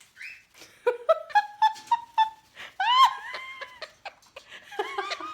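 Sun conure imitating a human laugh: a run of short, high laugh-like notes about four a second, then one longer call that rises and falls about three seconds in. Lower, human-sounding laughter begins near the end.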